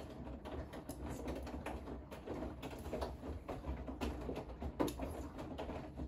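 Bosch front-loading washing machine drum tumbling a load of wet laundry during the wash: a low motor hum under a steady run of soft knocks and swishes as the clothes fall. The drum stops at the very end and the sound drops away.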